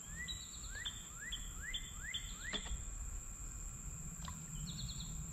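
A songbird singing a run of rising whistled notes, about six in the first three seconds, with a short trill near the end, over the steady high drone of insects.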